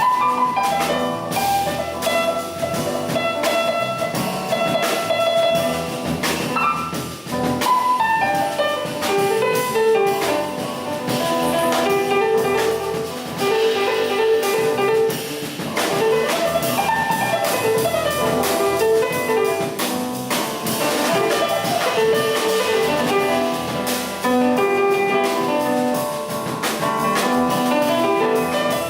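Jazz trio playing an improvisation: piano running quick melodic phrases on a five-note pentatonic scale (E, G, A, B, D) over a drum kit groove.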